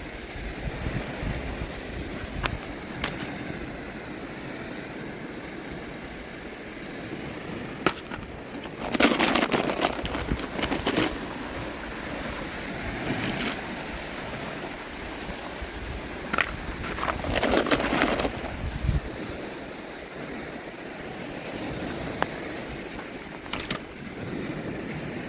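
Hands handling toy packaging: two stretches of rustling and crinkling, with several sharp small clicks of plastic pieces, over a steady hiss.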